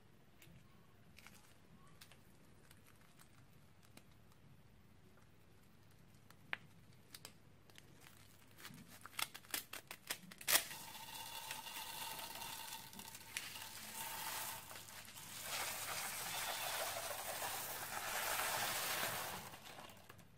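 Scissors snip through a plastic piping bag packed with tiny beads, about ten seconds in, after a quiet stretch with a few faint clicks. Then the plastic bag crinkles and the beads pour out in a dense rustling hiss into the bowl of slime base. The hiss is loudest near the end and stops just before it.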